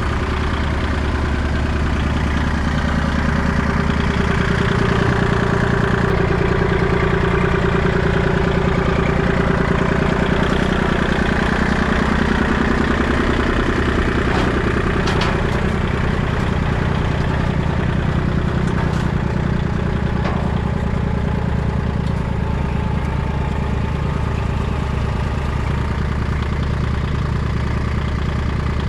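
Diesel engines of a mini excavator and a tractor idling as they warm up, a steady low running sound whose note shifts a little in the first half, with a few faint clicks around the middle.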